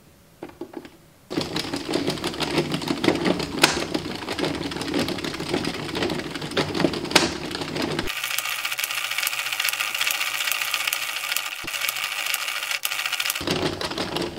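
Addi Express circular knitting machine being cranked by hand, its needles and carriage making a fast, even clatter of clicks that starts about a second in. About eight seconds in the clatter abruptly turns thinner and higher-pitched.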